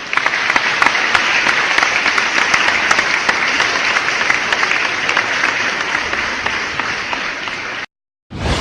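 Crowd applause, a dense patter of many hands clapping, that cuts off abruptly near the end. A brief, different sound follows just before the end.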